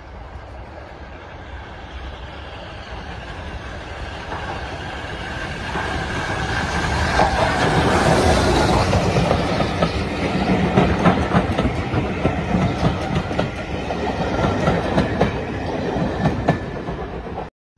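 A steam train working hard as it approaches and passes, growing louder to a peak about eight seconds in. Rhythmic clatter follows, and the sound cuts off abruptly near the end.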